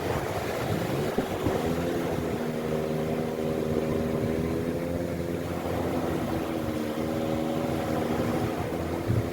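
Motorboat engine running, its pitch rising about a second and a half in and then holding steady.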